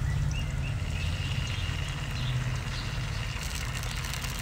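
A steady low drone like a motor running, over a faint sizzle of sliced onions and green chillies frying in oil in an aluminium kadhai.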